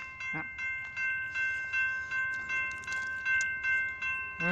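A railroad grade-crossing warning bell ringing with rapid, evenly repeated strikes, about two to three a second, while the gates are down for an approaching train.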